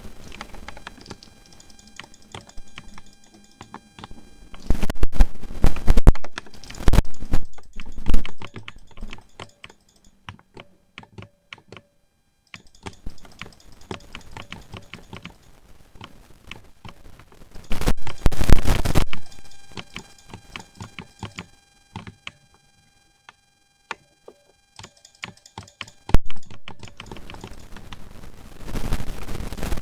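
Typing on a mechanical keyboard with lubed silver linear switches: scattered single keystrokes, broken by several loud spells of fast, dense typing.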